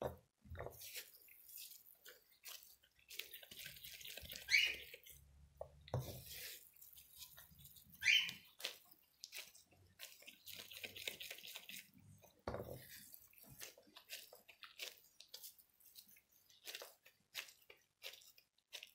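Moist bulgur çiğ köfte paste squeezed and rolled into balls by hands in disposable gloves: quiet, irregular wet squishing and patting with light clicks, and two short high squeaks about four and eight seconds in.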